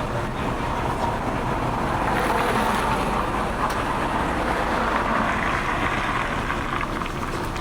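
Road traffic: a steady vehicle noise that swells as a vehicle passes, then eases off.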